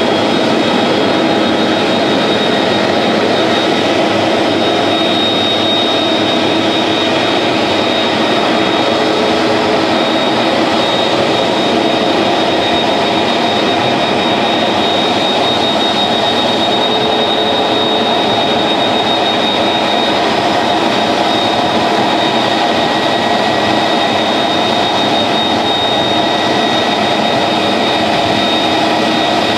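Airbus A330 airliner's two jet engines running at taxi idle as it rolls in slowly. The sound is a steady, loud whine over a broad rush, unchanging throughout.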